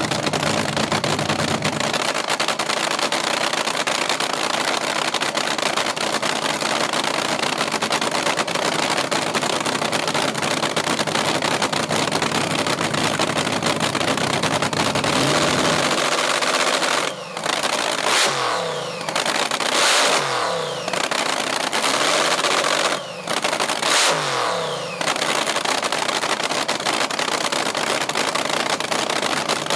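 Supercharged nitro-burning engine of a vintage AA/FA fuel altered drag car running loudly at a cackle. From a little past halfway it is blipped several times in quick succession, the revs dropping back after each blip, then it settles back to a steady run.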